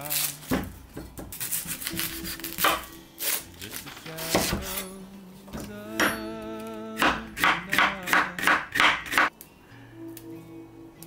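Knife chopping food on a wooden cutting board: scattered cuts, then a quicker run of about nine chops after about seven seconds, over soft background music.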